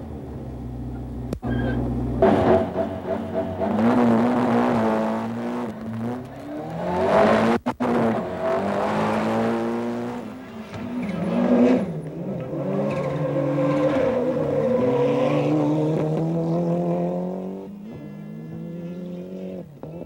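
Rally car engines revving hard under acceleration, their pitch climbing and dropping repeatedly through gear changes.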